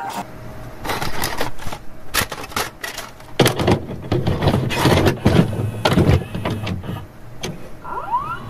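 A run of irregular mechanical clicks and clunks, thickest in the middle, over a low hum, with a short rising whir near the end.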